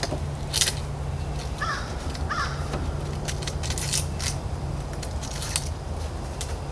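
A bird caws twice, briefly, about two seconds in, over a steady low hum. Scattered clicks and short hissy rustles of handling run through it.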